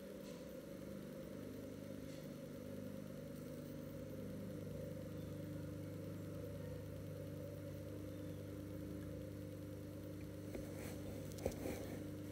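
A steady low mechanical hum with a few even tones, running throughout, and a faint click near the end.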